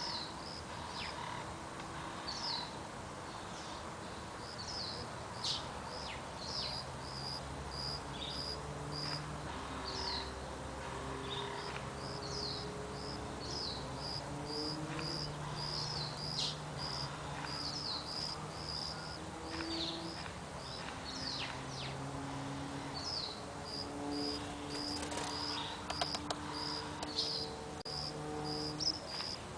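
Wild birds calling: a quick, irregular run of short, high chirps throughout, over a faint low drone. A few sharp clicks come near the end.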